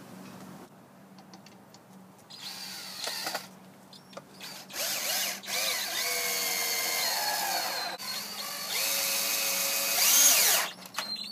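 Cordless drill run in several bursts into a wooden block on a plywood board. Its motor whine climbs in pitch as each burst starts and drops as it stops, with the longest runs near the middle and the end.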